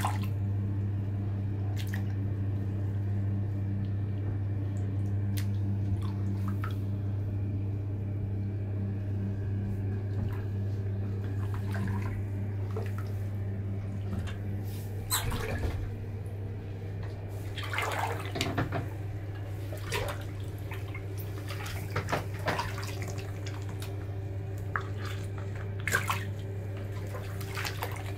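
Bathwater splashing and dripping as feet in wet canvas Converse sneakers move in a bubble bath, with water running off a lifted shoe; the splashes come more often in the second half. A steady low hum runs underneath.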